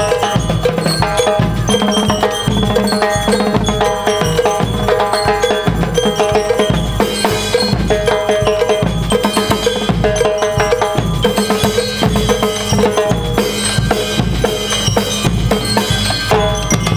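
School marching band (banda de guerra) playing: bass drum and snare drums beat a steady march rhythm under a repeating melody on bell lyres.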